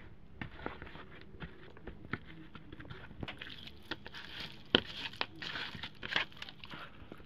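A bare hand kneading and turning raw chicken pieces with spices in a plastic bowl: irregular wet squishing and light slaps, busier in the second half, with one sharp knock a little past the middle.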